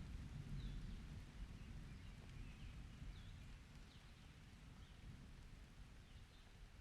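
Faint rain ambience: a low rumble of distant thunder slowly dying away under a light hiss of rain, with a few short bird chirps scattered through it.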